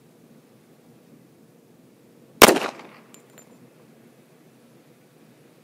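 A single .45 Auto pistol shot from a Springfield Armory 1911A1 GI model with a 5-inch barrel, about two and a half seconds in, dying away within about half a second.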